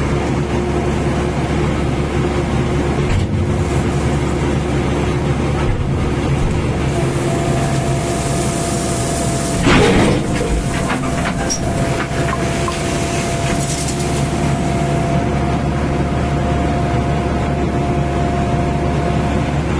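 Heavy vehicle engine running steadily with a constant low hum, a brief louder rattle about halfway through.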